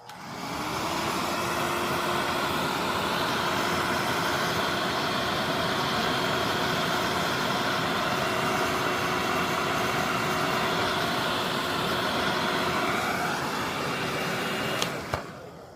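Hair dryer switched on, its motor spinning up to a steady whir of blowing air that runs about fifteen seconds and then is switched off with a click near the end. It is heating the phone's back cover to soften the adhesive before prying it open.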